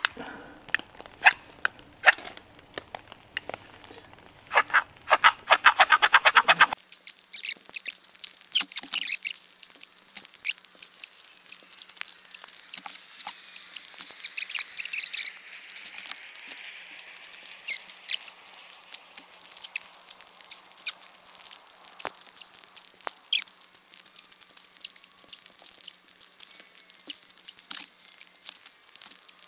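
Knife spine scraping down a ferro rod (fire steel) into birch-bark tinder: a few single strikes, then a quick run of rapid strokes that stops abruptly about seven seconds in. The rod has worn ridges and is throwing a poor spark. Then quieter, scattered scrapes and clicks of the knife working birch bark.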